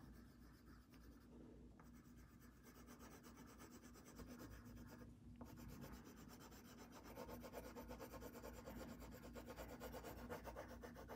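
Colored pencil shading on paper in quick back-and-forth strokes, faint at first, stronger from about four seconds in and fullest after about seven seconds.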